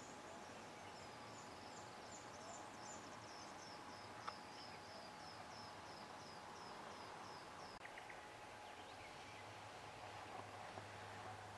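Faint rural ambience: a high chirping call repeated a few times a second, dying away after about eight seconds, over a steady background hiss. There is a single click about four seconds in.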